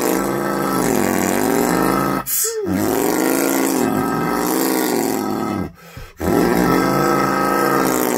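A man's voice droning into a large water jug to imitate diesel pickup engines straining in a tug-of-war. It comes as three long held notes, each sagging and rising in pitch, with short breaks about two and six seconds in.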